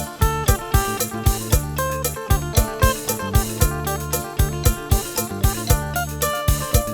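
Music with a steady, quick drum beat over a held bass line and a melody.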